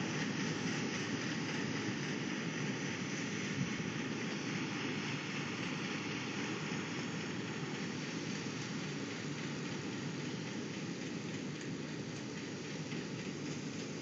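Deutz D130-06 tractor and International 82 pull-type combine harvesting spelt: steady running of the tractor engine and the combine's threshing machinery, slowly fading as the rig pulls away.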